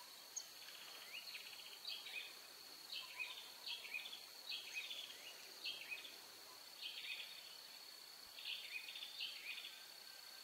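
Faint outdoor nature ambience: a steady high-pitched insect drone, with groups of short chirps that drop in pitch, repeating about once a second.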